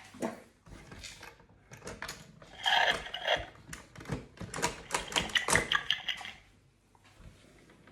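Plastic pieces of a Burping Hippo toy board game clicking and rattling as they are handled, in quick irregular clicks from about two seconds in until about six seconds in.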